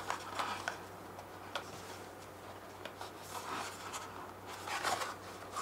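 Cardboard rubbing and scraping as a small black cardboard box is slid open out of its sleeve, with a few light ticks and taps of handling; the rubbing is loudest about three and a half seconds and five seconds in.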